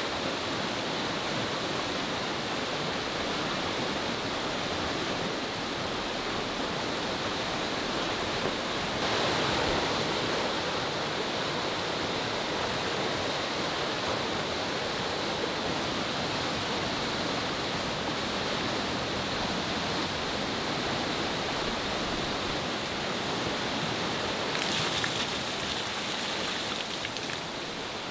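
Steady rushing of a swollen, fast-flowing river in flood, with a few brief crackles near the end.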